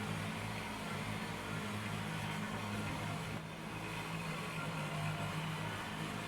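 Kubota BX25 sub-compact tractor's three-cylinder diesel engine running at a steady speed.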